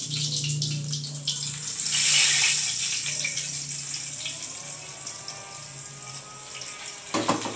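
Hot oil sizzling in a wok of frying pindang fish, swelling about two seconds in and then slowly dying down. A clatter near the end.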